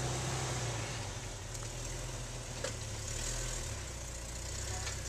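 Jeep Wrangler engine running low and steady as the Jeep crawls slowly over rocks, with a few faint clicks.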